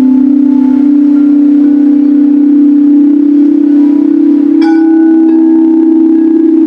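Singing bowls ringing with a sustained low hum that pulses slowly as the tones beat against each other. A fresh strike about halfway through adds higher ringing tones over the hum.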